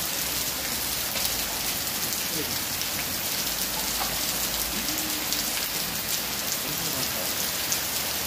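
Heavy rain falling steadily, splashing on wet stone paving and pouring off the edge of a thatched roof.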